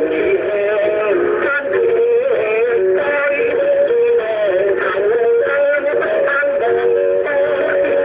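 A recorded Chinese vocal duet: singing over instrumental accompaniment, with two melodic lines moving together.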